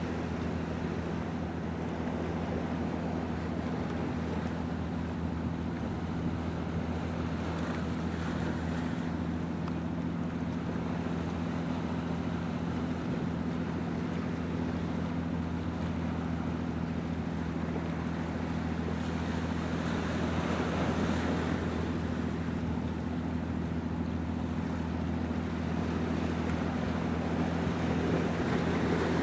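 A ship's engine drones steadily at constant speed, a low even hum, under the wash of water and wind buffeting the microphone. The wind and water noise swells briefly about two-thirds of the way through and again near the end.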